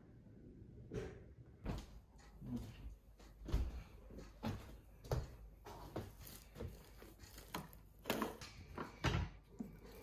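Kitchen clatter: a run of irregular knocks and clicks from dishes, cupboards and utensils being handled while toast is made, roughly one or two a second, with the loudest knocks in the middle and near the end.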